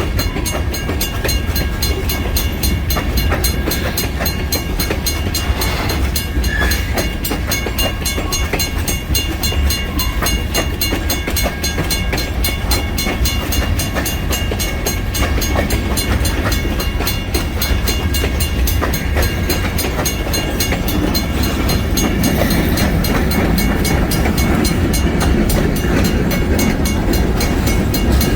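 Kiamichi Railroad freight train rolling steadily past a grade crossing, its wheels rumbling and clacking over the rail joints.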